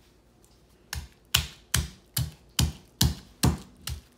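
Stone pestle pounding garlic, ginger, peppercorns and salt in a lava-stone molcajete: about eight sharp knocks, roughly two a second, starting about a second in.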